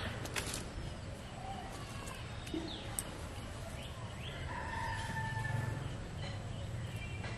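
A rooster crowing once, about four and a half seconds in, with a few short falling bird chirps over a steady low background.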